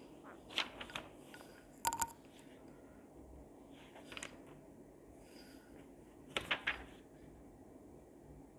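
Sheets of paper being handled and turned over: a few short, crisp rustles and clicks, the loudest about two seconds in and a quick cluster of three around six and a half seconds, over quiet room tone.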